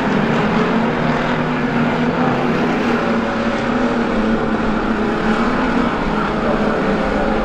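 Engines of several street stock race cars running hard as a pack laps the track, a steady, loud drone of overlapping engine notes that rise and fall as the cars pass.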